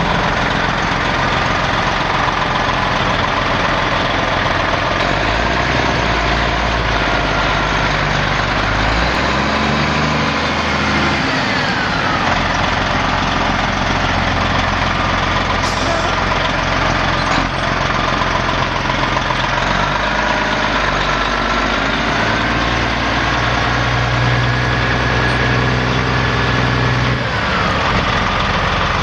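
1995 Peterbilt 377 truck tractor's diesel engine idling steadily, with a higher whine that twice drops in pitch, about twelve seconds in and near the end.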